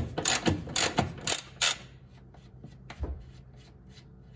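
Ratchet wrench clicking in quick back-and-forth strokes, about two a second, as a bolt is backed out; it stops a little under two seconds in, and a single knock follows about a second later.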